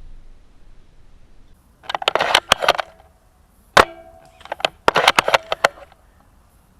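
VSR-10 spring-piston airsoft sniper rifle: a quick run of clicks as the bolt is worked, then a single sharp shot with a short metallic spring ring; the clicks and a second ringing shot repeat near the end.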